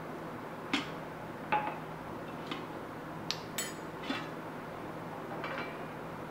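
Glass bowls and a steel plate being handled and set down, giving about seven light clinks and knocks, a couple with a brief glassy ring.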